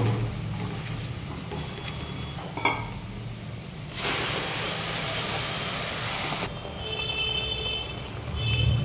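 Ground masala paste hitting hot oil and fried onions in a metal pot: a sudden loud sizzle about four seconds in that lasts a couple of seconds, then settles to a quieter bubbling fry. Before it, gentle frying with a steady low hum underneath and a single click.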